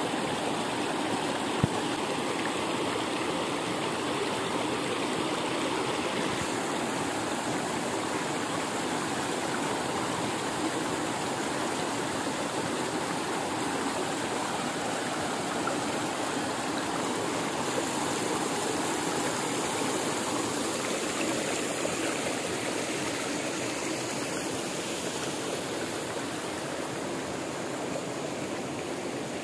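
Small waterfall splashing into a rocky pool and the stream running on below it: a steady, even rush of water.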